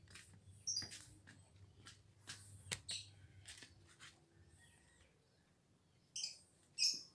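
A small bird chirping in short calls, the loudest two near the end, among light clicks and knocks of parts being handled.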